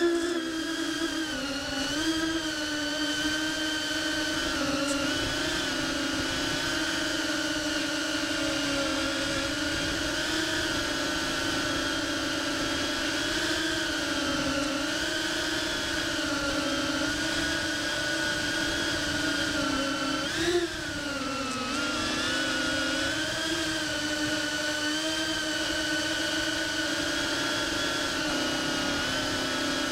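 GEPRC CineBot30 3-inch ducted cinewhoop's motors and propellers whining steadily in flight, the pitch drifting up and down with throttle. About twenty seconds in there is a brief surge in pitch followed by a dip.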